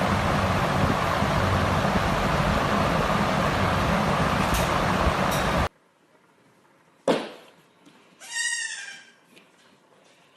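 Steady rushing noise like road traffic that cuts off suddenly; after a quiet gap and a sharp click, an animal gives one short, wavering bleat.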